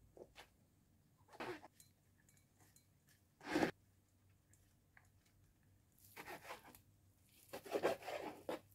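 Quiet kitchen handling sounds: shimeji mushrooms being pulled apart by hand and dropped into a wire mesh colander, with a brief knock about three and a half seconds in. Near the end comes a short run of strokes as a knife slices raw beef on a plastic cutting board.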